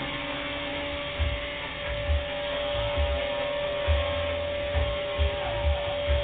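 Align T-Rex 250 electric RC helicopter hovering at full throttle: a steady, even whine from the motor and spinning rotor. Dull low thumps come every half second or so.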